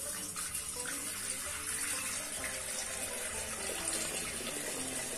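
Water pouring in a steady stream into a glass fish bowl, splashing and bubbling into the water gathering at the bottom.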